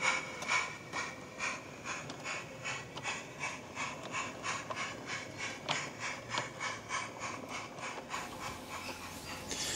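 Battery-powered 16mm-scale model goods train pulling away along garden railway track, with a regular clicking that quickens from about two to about three a second and grows fainter as it draws off.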